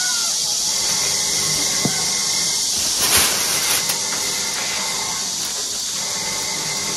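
Plastic bags rustling and crinkling as two kittens play on them over a steady hiss, with one louder crackle about three seconds in as a kitten scrambles onto a bag.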